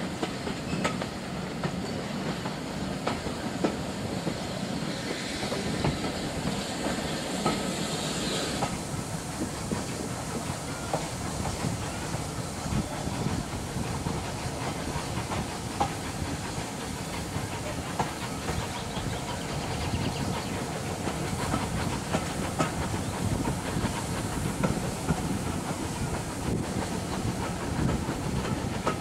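Steam-hauled passenger train heard from a carriage window: a steady running noise with the wheels clicking over rail joints, and a hiss of steam that cuts off about nine seconds in.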